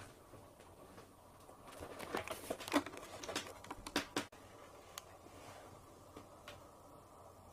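Clicks, knocks and rustling from people moving and handling things in a small wooden room. A busy cluster comes about two seconds in, loudest near the middle, then it stops suddenly and only a faint steady hum remains.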